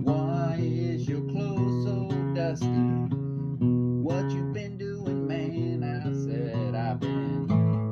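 A man singing to his own strummed acoustic guitar, the voice dropping out briefly about halfway through while the chords keep going.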